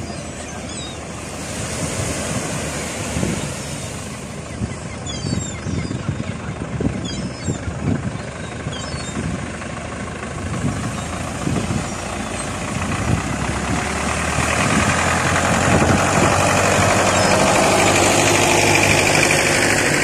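Tractor engine chugging unevenly in the shallow surf as it hauls a fishing boat on its trailer out of the water, growing louder and steadier in the last few seconds. Gulls call briefly a few times in the first half.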